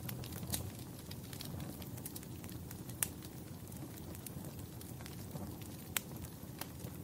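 Fire in a fireplace burning with a low steady rumble, crackling with scattered sharp pops, the loudest about three and six seconds in.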